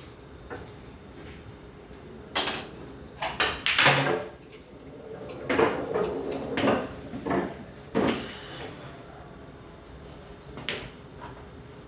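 Pool cue strikes and billiard balls clacking against each other and knocking into the cushions and pockets of a small sinuca table: a string of sharp knocks, the loudest about four seconds in, with a second cluster around six to eight seconds in.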